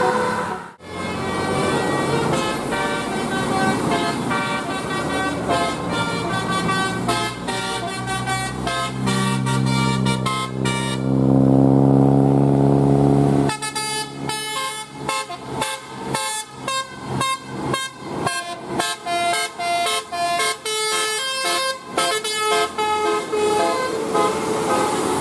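Bus 'telolet' basuri multi-tone horns playing stepping tune-like notes, then one long, loud, low blast from about nine to thirteen seconds in, followed by quick choppy honks.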